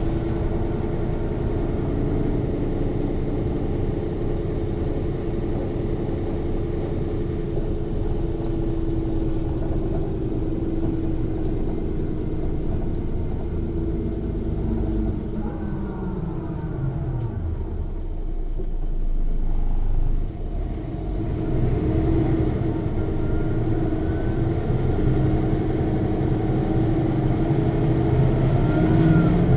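Interior sound of a Mercedes-Benz O 405 N1 city bus: the diesel engine runs loud and steady with the rear axle's drive gear whine audible, both falling in pitch about halfway through as the bus slows, dropping low for a few seconds, then rising again near the end as the bus pulls away.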